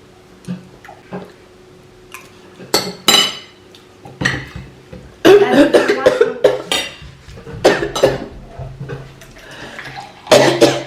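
Metal spoons clinking and scraping against plates of rice while people eat, with scattered clicks at first and a louder, busier stretch of clatter from about halfway.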